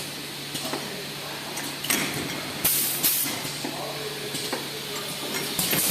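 Automatic perfume filling machine running: a steady low hum with short hissing blasts of air from its pneumatic cylinders and valves at irregular intervals, and sharp mechanical clicks.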